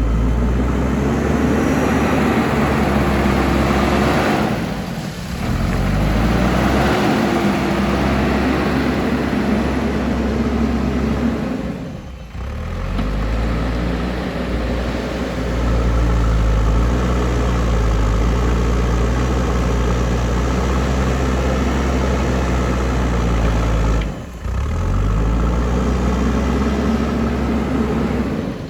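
JCB backhoe loader's diesel engine running continuously while it digs, its note shifting with load. The sound dips briefly three times.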